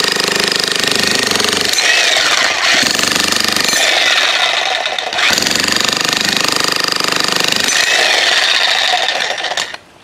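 A 2200-watt Xtreme Power electric demolition hammer (jackhammer) pounds a chisel bit into a concrete slab, breaking it up. It runs continuously, with a brief let-up about five seconds in, and stops near the end.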